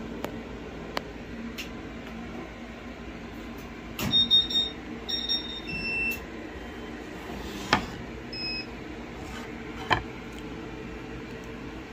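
Short electronic beeps: a cluster of them about four to six seconds in and another near eight and a half seconds, with a few sharp clicks, over a steady low hum.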